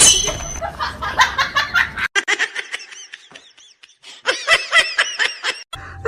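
Laughing in quick repeated bursts of high-pitched ha-ha pulses, over background music for the first two seconds.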